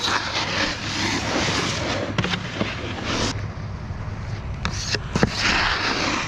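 Snowboard sliding and scraping over packed snow, with a few sharp knocks.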